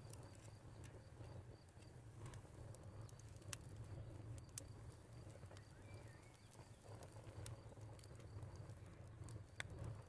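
Faint outdoor nature ambience: a steady low rumble with scattered small clicks and ticks, and a faint high pulsing tone that stops about four seconds in.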